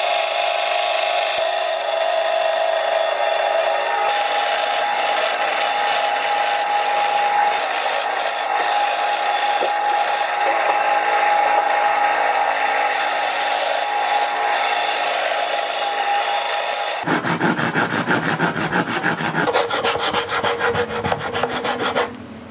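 A power tool cutting or sanding with a steady whine for about seventeen seconds, then quick, even back-and-forth rasping strokes that stop suddenly near the end.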